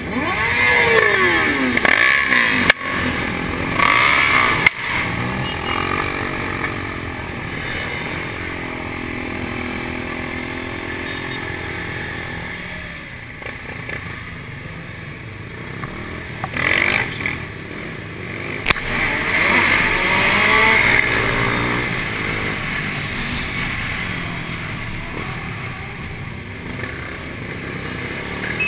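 Motorcycle engines of a large group ride, the nearest engine revving up and falling back with a stretch of steady running in between, over road and wind noise. Two sharp clicks in the first five seconds.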